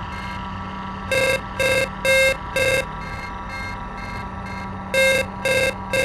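Electronic sound from the SoundScaper iPad app's oscillator: a steady droning tone underneath, with groups of short buzzy beeps about two a second, four together about a second in and three more near the end.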